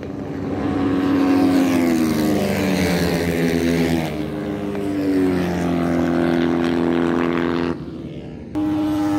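Motorcycle engine pulling hard along the track, its note stepping in pitch at each gear change. The sound drops away abruptly about three-quarters of the way through and comes back loud just before the end.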